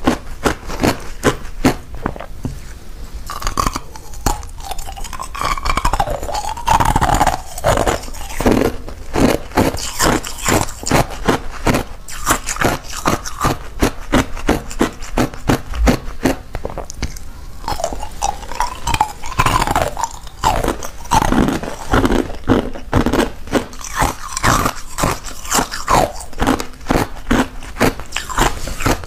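Clear ice chunks being bitten and chewed: rapid, sharp crunches, several a second, with brief quieter gaps between mouthfuls.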